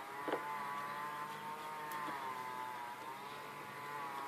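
A motor runs steadily in the background, a humming whine that slowly wavers in pitch, with one light knock just after the start.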